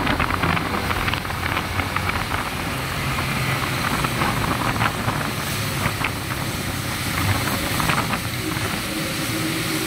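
A motorcycle ridden at speed on a wet road: a steady rush of wind on the microphone mixed with the engine's drone and the hiss of tyres on wet tarmac.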